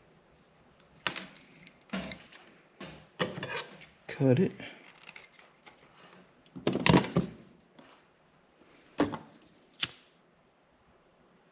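1/4-inch wire harness sleeving being cut, heard as a series of short, sharp snips with handling rustle in between, about every second or two.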